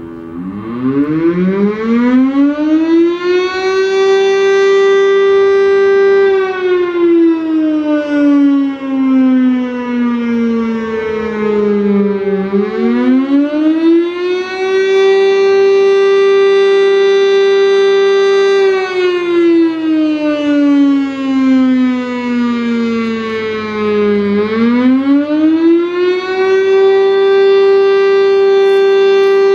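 Federal Signal STL-10 outdoor warning siren sounding a test: it winds up from low to full pitch, holds, slides slowly down, then winds back up, in a wail that repeats about every twelve seconds.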